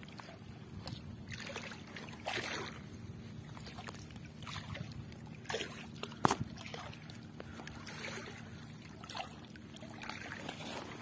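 Water splashing and dripping as a fishing net is hauled up out of the water by hand, in irregular splashes, with one sharp knock about six seconds in over a faint steady low hum.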